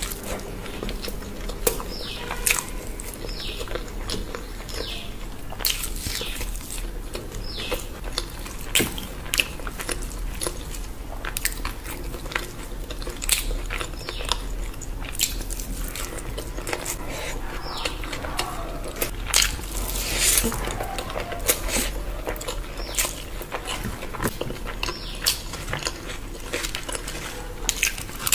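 Close-miked chewing of soft biryani rice and meat eaten by hand, with many short sharp mouth clicks throughout.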